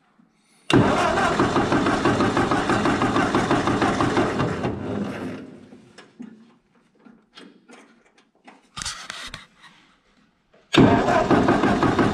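Ford 8N tractor's starter cranking the four-cylinder flathead engine over in a steady pulsing rhythm without it firing. A burst of about four seconds fades out, a short bump of the starter follows, and cranking starts again near the end. The engine won't catch because the coil has lost its spark, which the owner takes for a failed coil.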